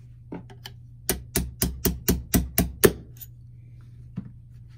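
About eight quick, sharp hammer taps on a punch, roughly four a second, the last the loudest, driving the split takedown pin out of a Martini Cadet rifle's action; a few lighter clicks come just before them.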